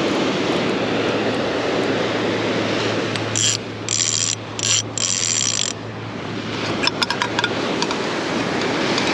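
Fishing reel's clicker ratcheting in four short bursts about three seconds in as the spool turns, over steady surf, with a few light clicks afterward.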